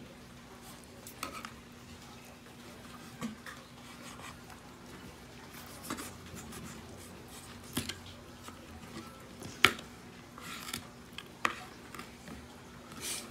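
Kitchen knife cutting a raw chicken wing on a plastic cutting board: scattered taps and knocks of the blade against the board, the loudest almost ten seconds in. A faint steady hum runs underneath.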